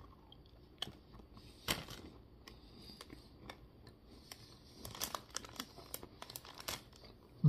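Close-up mouth sounds of biting into and chewing a large soft peanut butter cookie: scattered small wet clicks and crackles, a sharper one about two seconds in and a busier run of them between about five and seven seconds in.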